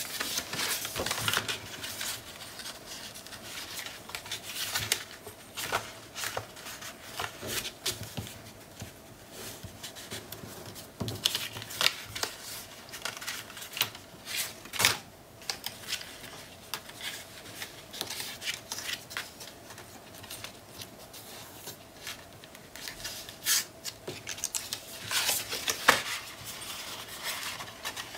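Paper and cardstock being handled, folded and pressed down by hand: irregular rustling, rubbing and short crisp scrapes.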